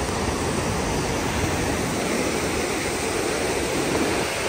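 Fast, silt-laden mountain river rushing over rocks and a small weir: a steady, loud, even rush of water.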